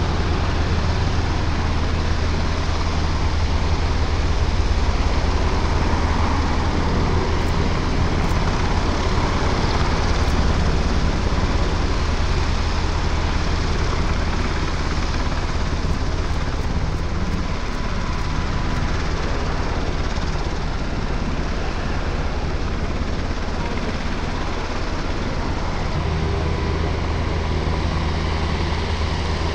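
UH-60 Black Hawk helicopter flying low and slow, its twin turbine engines and rotor blades making a steady, loud drone with a deep rotor beat.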